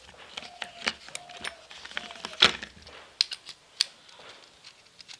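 Scattered clicks and clinks of a screwdriver and small tools being handled, with one louder knock about two and a half seconds in.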